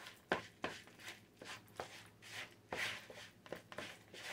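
Wooden spoon stirring a thick ricotta and parmesan cheese mixture in a mixing bowl: faint, irregular knocks and scrapes of the spoon against the bowl, two or three a second.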